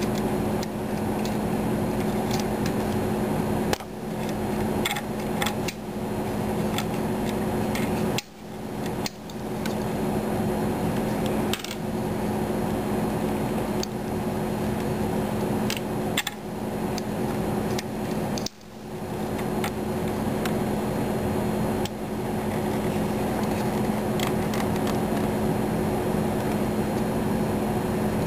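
A steady machine hum with a low pitch, dipping briefly twice, with scattered small clicks and light knocks.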